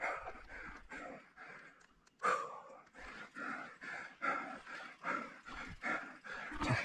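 A mountain biker panting hard, in quick breaths about two to three a second, out of breath from exertion on a steep climb.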